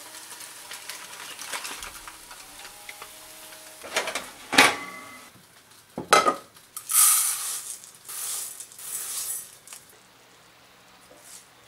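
Food sizzling in a frying pan, with a couple of ringing metal clinks of a utensil against the pan about halfway through, followed by a few short scraping bursts.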